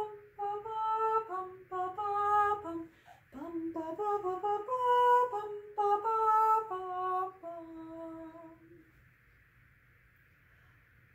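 A woman singing a Dutch folk dance tune unaccompanied on wordless syllables, with held notes stepping up and down, stopping about eight and a half seconds in.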